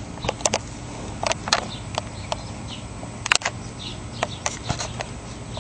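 Irregular sharp crackles and snaps, several a second in clusters, with faint bird chirps behind them.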